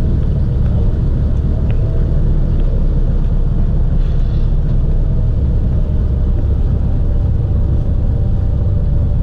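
Douglas DC-3's piston radial engine running steadily after start, its propeller turning. It is heard from inside the cabin as a loud, even, deep rumble.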